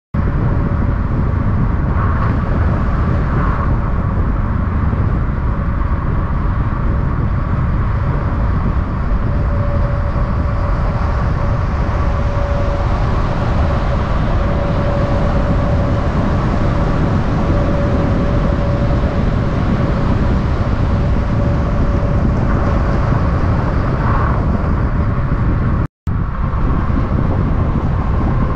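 Heavy truck's diesel engine running steadily with a loud, even low rumble and a constant drone, with no revving or engine-brake chatter. It drops out for a split second near the end and picks up again.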